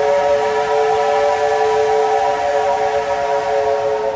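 Steam locomotive 3801's whistle blowing one long, steady blast, several notes sounding together as a chord.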